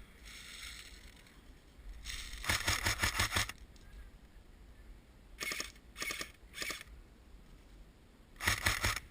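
Airsoft gun firing in full-auto bursts of rapid shots. There is a burst of about a second a couple of seconds in, three short bursts about halfway through, and another burst near the end.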